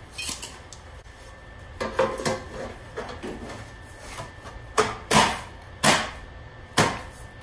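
Sheet-metal patch panel clattering and scraping against the car's inner wheel-well metal as it is handled and pressed into place: a string of sharp knocks and scrapes, the loudest near the end.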